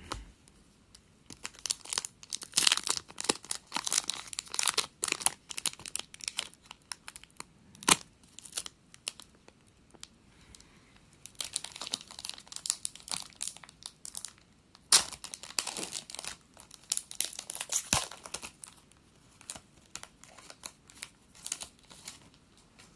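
Foil trading-card pack wrapper being torn open and crinkled in several bursts of crackling, with a few sharp taps between them.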